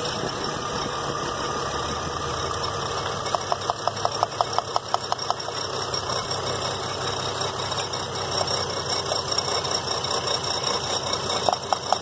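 A 2003 GMC Envoy's 4.2-litre inline-six idles with a misfire while its coil pack connectors are unplugged one by one to find the dead cylinder. About three seconds in comes a quick run of sharp, evenly spaced ticks, about six a second, and more ticks come near the end.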